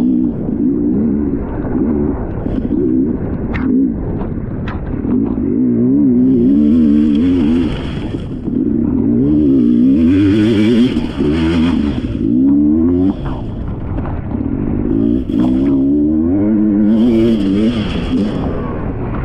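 Off-road dirt bike engine revving up and down hard as it is ridden fast along a muddy trail, with a few sharp knocks along the way.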